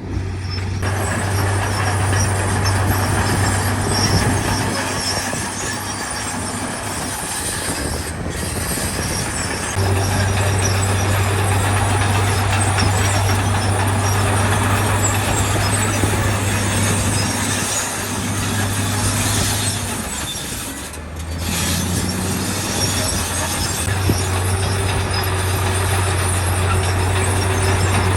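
Heavy diesel earthmoving machinery running, a steady low engine hum under a broad rumbling noise, the hum fading and coming back a few times.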